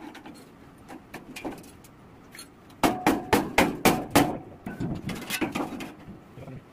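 Hammer blows on sheet-steel boat hull plates: a quick run of about seven sharp, ringing strikes, roughly four a second, starting about three seconds in, followed by a few lighter knocks.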